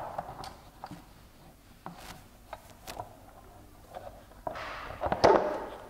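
Plastic vacuum hood being fitted by hand onto a floor sanding machine's pad holder: scattered light clicks and taps, then a louder scraping rustle about five seconds in as the hood is worked into place.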